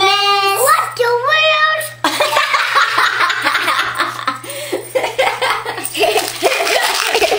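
A child's voice drawn out in a sing-song "Merry Christmas", ending about two seconds in, then a woman and a child laughing together.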